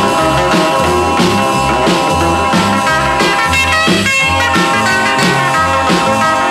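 Rock-and-roll background music without singing: electric guitar over a steady, repeating bass line and beat.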